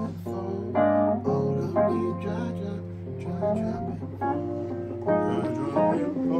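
Electric piano playing a slow solo passage of chords, a new chord struck about every second and left to ring and fade.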